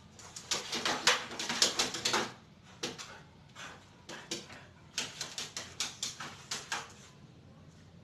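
Two spells of rapid clicking and scuffing on a concrete floor as a tethered dog moves about and a person walks close by.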